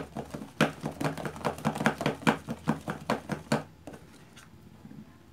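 A spoon stirring thick fluffy slime in a plastic bowl, knocking and scraping against the bowl in quick strokes, about five a second, stopping about three and a half seconds in. The slime is being mixed through with liquid laundry detergent as the activator.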